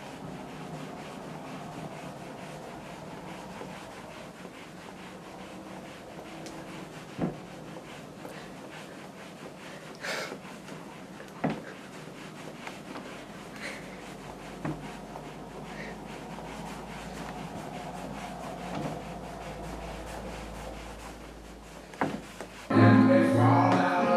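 A few soft knocks and creaks of bare feet shifting on a wooden parquet floor over a faint steady room sound. Loud music starts abruptly near the end.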